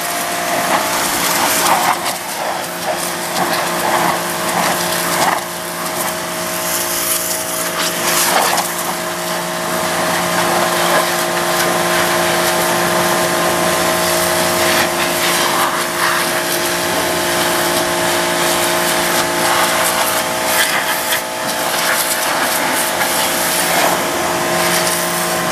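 Pressure washer running steadily, its high-pressure jet hissing and spattering against the underside and wheels of a Cub Cadet zero-turn mower, the spray noise swelling and easing as the wand is moved.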